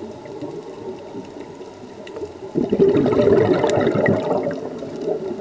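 Underwater: a scuba diver's exhaled breath bubbling out of the regulator, a loud burst starting about halfway through and lasting about two and a half seconds, over a quieter water rush.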